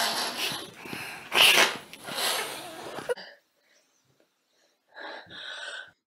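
A young woman sneezing and blowing her nose into a tissue: noisy, wet blowing with a loud burst about one and a half seconds in and a second one shortly after, fading out about three seconds in.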